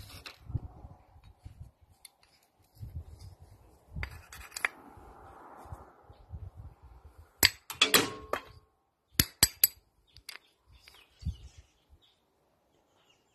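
Small metal parts of a Paris Rhône starter solenoid clinking and clicking as they are handled and taken off by hand, with a burst of sharp clinks about halfway through and a few single knocks after it.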